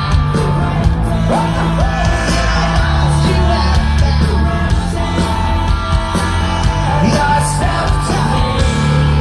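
Rock music with singing and steady bass notes.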